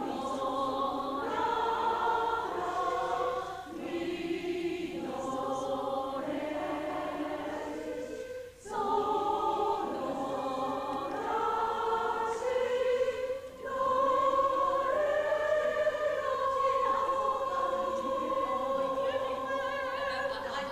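A group of voices singing together as a choir, a slow song in long phrases, the last one a long held note.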